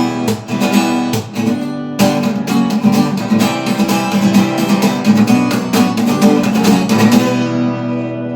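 Acoustic guitar strummed in a steady rhythm, playing the instrumental ending of a song with no singing. Near the end the strumming softens briefly before the next stroke.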